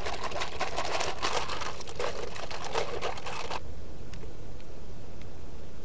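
MRE plastic beverage bag of cranberry-grape drink mix being shaken to mix it: rapid crinkling and rustling of the plastic that stops suddenly about three and a half seconds in, followed by a few faint clicks.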